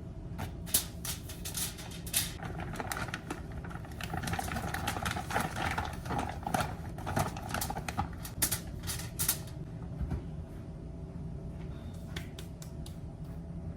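Irregular clicks and taps from kitchen items being handled, mostly over the first nine seconds, over a steady low hum.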